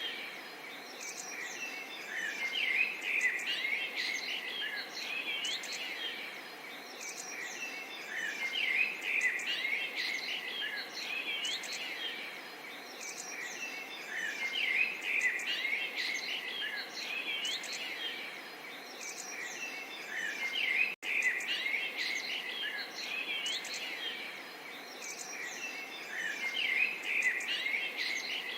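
Chorus of many small songbirds chirping and twittering, swelling every few seconds, over a faint steady babble of water. The sound breaks off for a split second about two-thirds of the way through.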